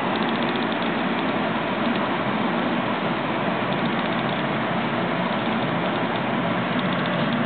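Steady running noise of a SEPTA electric commuter train heard from inside the passenger car: a constant rumble of wheels on rail as the train moves along the track.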